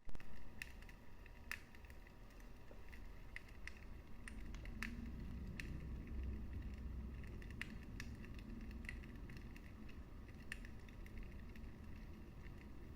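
Wood fire in a fireplace crackling: irregular sharp snaps and pops, a few a second, over a low steady rumble of the flames.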